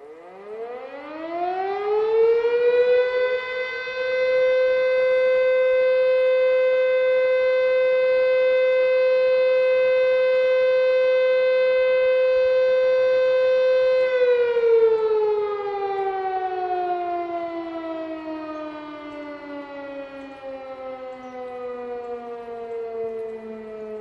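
Elektror S4A electric motor siren sounding a test signal: it spins up with its pitch rising over about four seconds, holds one steady tone for about ten seconds, then is switched off and winds down in a long, slowly falling wail.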